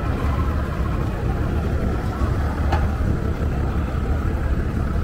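Steady low rumble of boat outboard engines running close by, with one short click about two and a half seconds in.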